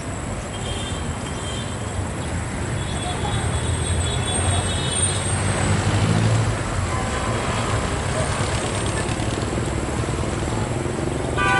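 Road traffic going by: a steady rumble of vehicles, with one passing engine growing louder through the middle and then easing off.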